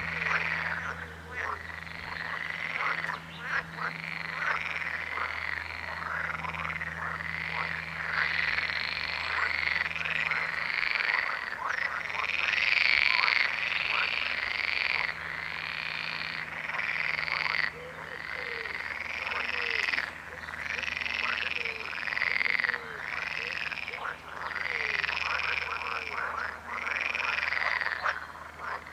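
A chorus of frogs calling continuously, many overlapping arching croaks about one a second mixed with quick rattling calls. A steady low hum runs underneath.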